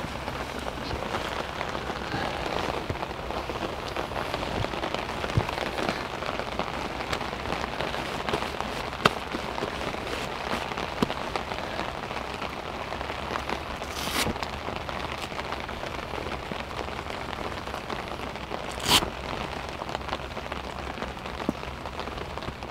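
Heavy rain falling steadily, with many small drop ticks and two louder, sharper hits, one a little past halfway and one near the end.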